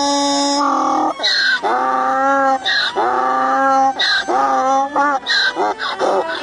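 An animal calling over and over: about six drawn-out, pitched calls, each with a sharp start, coming roughly once a second.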